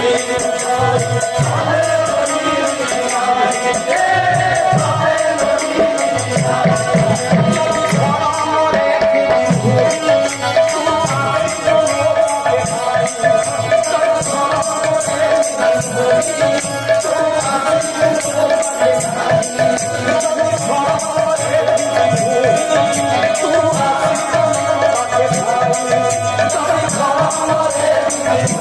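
Kirtan, a devotional song sung by a group of voices, with jingling hand percussion keeping a steady beat over a held note.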